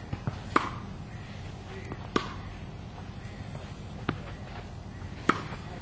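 Tennis ball being struck by a racket and bouncing during practice: four sharp pops spaced one to two seconds apart, with a fainter tap just before the first.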